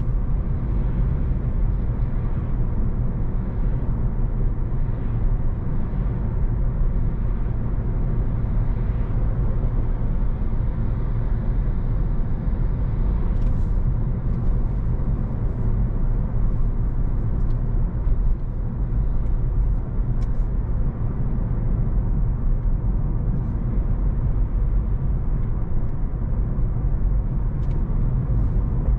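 Car driving along a suburban road, heard from inside the cabin: a steady low rumble of road and tyre noise, with a few faint ticks in the second half.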